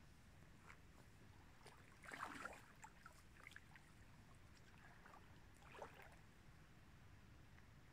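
Shallow river water splashing briefly twice, about two seconds in and again near six seconds, against near silence.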